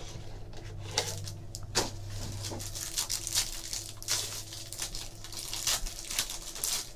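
A trading card pack being torn open: the paper pack sleeve is ripped and the clear plastic wrap around the cards is crinkled and pulled off. The crackling goes on throughout, with several sharper rips.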